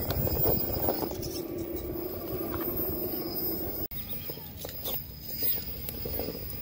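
Electric RC rock crawler with a Holmes Revolver 540 brushless motor and shaft drivetrain climbing rock: a steady motor and gear whine, with tyres and chassis knocking on the stone. The sound drops out suddenly about four seconds in and comes back with more scattered knocks.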